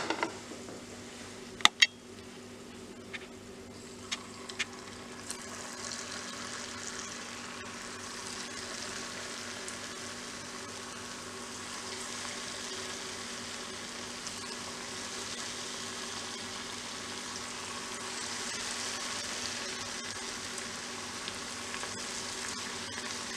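Batter-coated potato pieces deep-frying in hot refined oil in a kadhai: a steady sizzle that builds over the first several seconds as pieces are dropped in. A few sharp clicks in the first few seconds.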